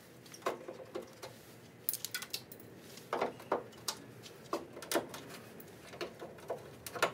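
Pliers squeezing and pulling small plastic grille-trim retaining clips out of their mounting holes on the car's front: a string of irregular small clicks and snaps.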